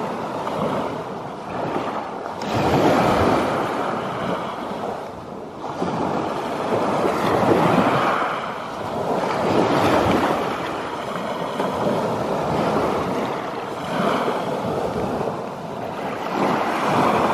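Small waves of Lake Superior washing up on a cobble beach. The surf swells and fades every few seconds.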